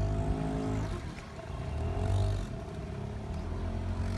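Tour boat's motor running steadily with a low hum while the boat moves along the channel.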